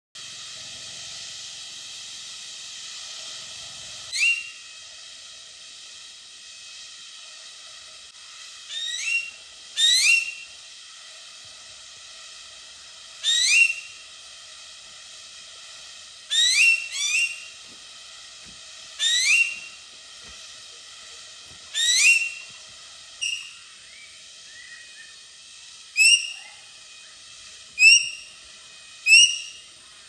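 Green magpie calling: about a dozen short, sharp rising whistles at irregular intervals, over a steady background hiss.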